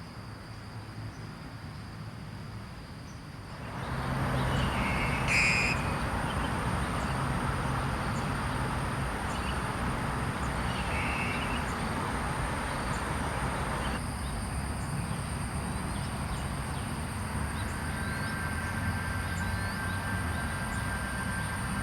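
Steady rumble of road traffic that swells about four seconds in and then holds, with insects' thin, steady high buzzing throughout.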